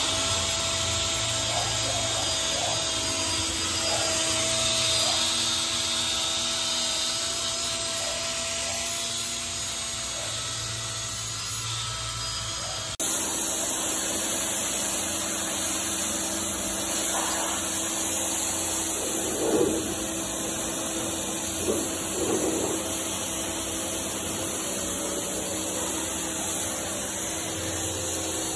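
Cordless drill spinning a round brush attachment, scrubbing degreaser foam into a car's floor carpet: a steady motor whine with the brush rubbing on the wet carpet. The sound changes abruptly about halfway through.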